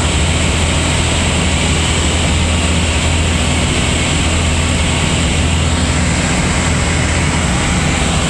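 Van's RV-10 light aircraft's piston engine and propeller droning steadily in cruise flight, heard from inside the cabin as a constant low hum under a rush of air noise.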